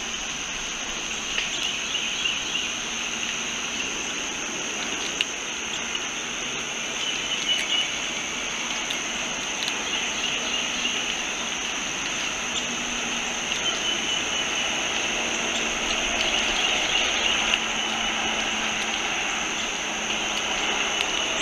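Steady chorus of insects: a high, even drone and a shimmering buzz below it, with a few faint clicks from a squirrel gnawing a pine cone.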